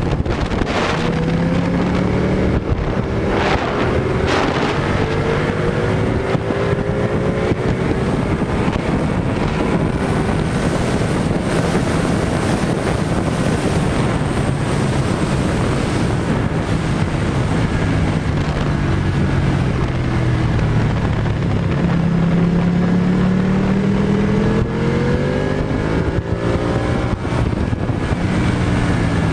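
Sport motorcycle engine heard onboard at track speed, its pitch rising and falling with throttle and gear changes, under a constant rush of wind on the microphone.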